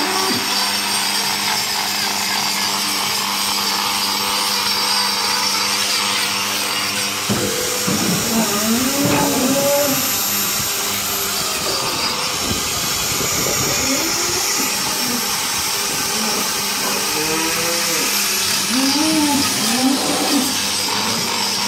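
Angle grinder with a hoof-trimming disc running against a cow's hoof: a steady high motor whine over a continuous grinding hiss. The whine dips briefly about twelve seconds in.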